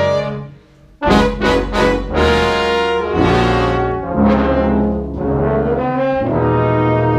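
Live brass ensemble of trumpets, trombones and saxophones playing. A held chord dies away, and after a brief gap about a second in, the band hits a few short punchy chords in quick succession, then moves into longer sustained chords over a steady low bass line.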